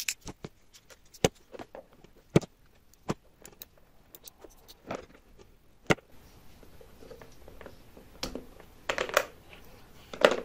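The plastic housing of a Vestel dishwasher pressure switch being pried open by hand and with pliers. Irregular small clicks and plastic snaps, a few of them sharper, as the cover comes off.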